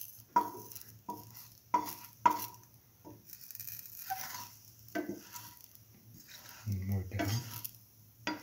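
A metal spatula clinking and scraping against a stainless steel frying pan as a bread sandwich is pushed around in the oil. There are about five sharp, ringing clinks in the first three seconds, then rougher scraping toward the end.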